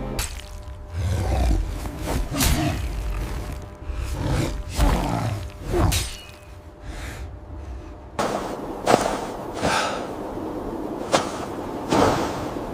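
Deep animal growls and roars, the sound of a giant wolf, come in several bouts over the first six seconds. Then a steady rushing noise sets in with a few sharp thumps.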